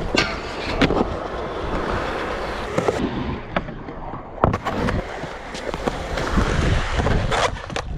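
Skateboard wheels rolling with a steady rumble, broken by several sharp clacks of the board popping and landing.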